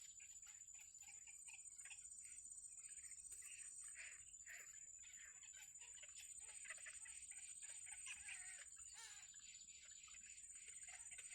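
Small birds chirping faintly, many short high calls in quick succession, over a steady high-pitched whine.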